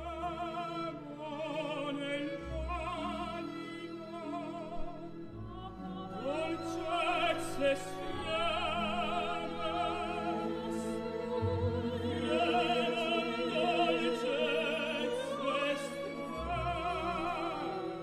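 An operatic soprano and tenor sing in Italian with a symphony orchestra, their voices carrying wide vibrato. At times they sing together as a duet, and the sound swells louder after the first few seconds.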